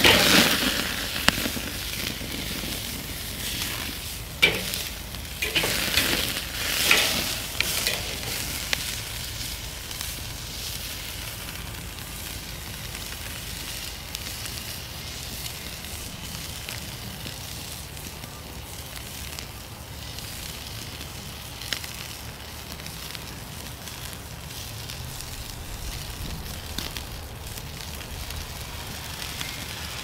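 T-bone steak sizzling on the hot grate of a Weber charcoal kettle grill: a loud burst of sizzle as it is laid back down after turning, several more surges over the next few seconds, then a steady, quieter sizzle.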